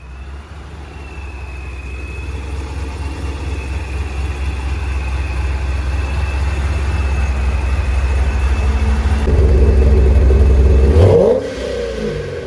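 Car engine pulling under throttle, its rumble building steadily for about ten seconds under a steady high whine, then dropping off suddenly about eleven seconds in as the throttle is lifted.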